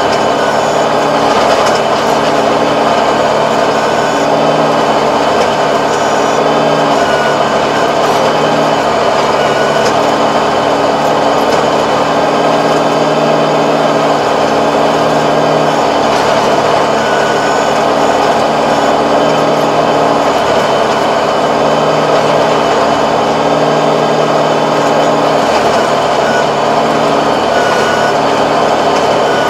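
Tractor diesel engine running steadily under load, driving a rear-mounted rotary tiller that churns through grassy soil.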